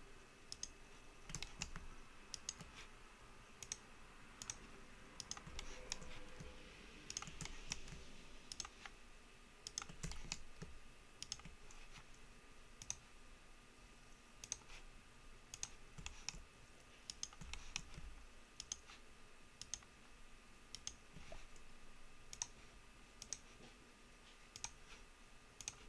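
Faint, irregular clicks of a computer mouse and keyboard keys, a few every second, as the user works in the software.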